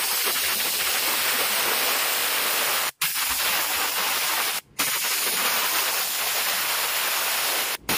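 Compressed-air blow gun hissing as it blows air through a motorcycle fuel injector, clearing out carb cleaner and loosened deposits. It comes in long steady blasts that stop abruptly for a moment about three seconds in and again about four and a half seconds in.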